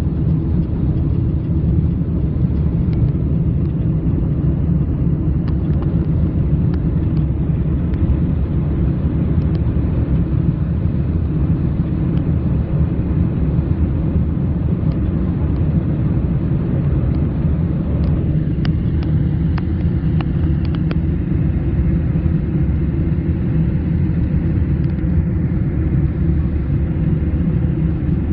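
Steady low roar of airliner cabin noise during the climb after takeoff: engines and airflow heard from a window seat, unchanging in level.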